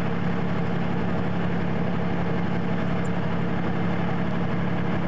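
Steady engine drone with an unchanging low hum, even in level throughout.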